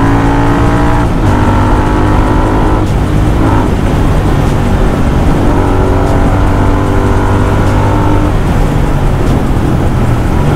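Royal Enfield Continental GT 650 parallel-twin engine through an aftermarket Powerage exhaust, pulling under throttle while riding. The exhaust note rises in pitch, breaks for upshifts about one and three seconds in, climbs more gently again and eases off later on. Road and wind noise runs beneath it.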